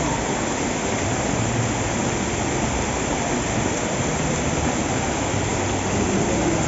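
Heavy rain pouring down steadily onto flooded paving, a dense, even hiss of falling and splashing water.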